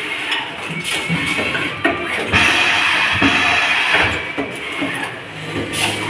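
Automatic lug-crimping and ferrule-marking machine running: irregular sharp clacks of its slides and crimping presses over a steady hiss.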